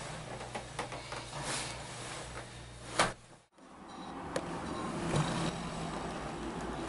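Ninebot One S2 electric unicycle's hub motor whirring and its tyre rolling on a rug as the wheel rocks back and forth, with scattered clicks. There is a single sharp knock about three seconds in.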